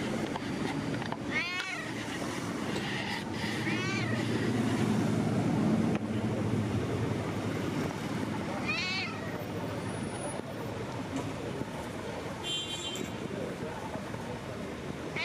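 Tabby cat meowing about four times, each a short call that rises and falls in pitch, over a low traffic rumble that grows louder in the middle.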